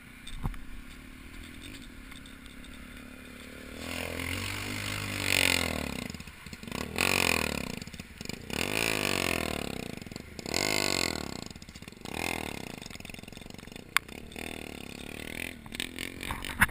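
Small dirt bike engine revving up and down in several bursts, starting about four seconds in, with the pitch rising and falling each time. There is a sharp click near the end.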